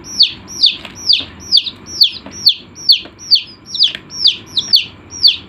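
Chick peeping: a loud, steady series of short high calls, each falling in pitch, about two to three a second.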